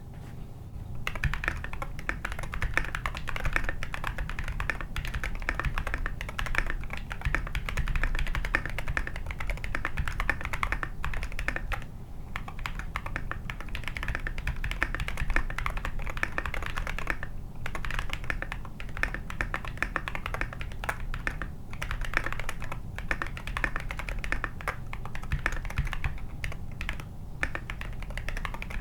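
Typing on a mechanical keyboard with Glorious Panda tactile switches and SA-profile keycaps in a foam-filled case: a quick, continuous stream of keystrokes that starts about a second in, broken by a few short pauses.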